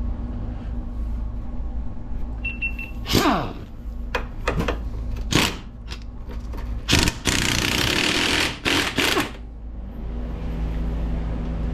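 AirCat 1055-TH half-inch pneumatic impact wrench on a tight steering nut: a few short bursts, then a longer hammering burst about seven seconds in that breaks the nut loose, over a steady low hum.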